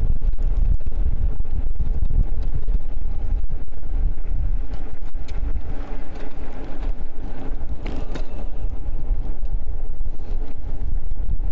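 Wind buffeting the microphone with a steady, dense low rumble while riding an e-bike, with a swell of road noise in the middle.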